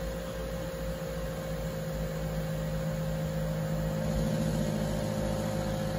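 Harman pellet stove combustion blower (exhaust fan motor) running with a steady hum and whir. Its bearings, about ten years old, are starting to go bad.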